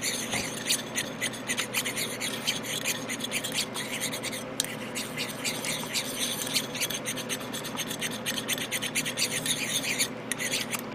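Airbrush paint being stirred in a small mixing cup: a stirrer scrapes rapidly and irregularly against the inside of the cup, with a couple of brief pauses.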